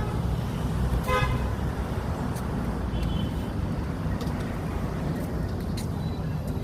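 Steady rumble of road traffic, with one short horn toot about a second in.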